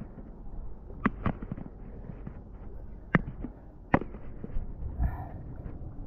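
Sharp knocks and taps of hands and a handheld camera against lava rock while climbing, the loudest about a second in, just after, a little past three seconds and about four seconds in, over low wind noise. A short vocal grunt about five seconds in.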